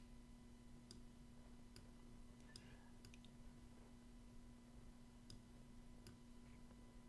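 Near silence with a faint steady hum, broken by about seven faint computer-mouse clicks scattered through, a few close together about three seconds in.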